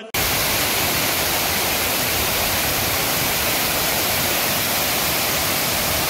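Waterfall pouring close by: a loud, steady rush of falling water with no breaks, cutting in abruptly.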